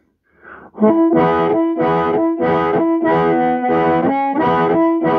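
Harmonica played through a Hohner Harp Blaster microphone and a Roland Cube Street amplifier, starting about a second in. It is a rhythmic run of chords pulsing about twice a second over a held note.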